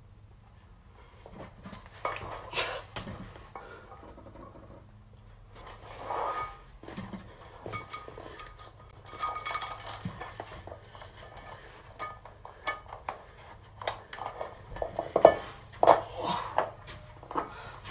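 Scattered metal clinks and clanks of weight plates and barbell hardware being handled, growing denser and loudest near the end.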